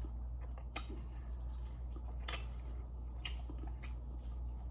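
A person chewing food close to the microphone, with a few sharp wet mouth clicks scattered through it.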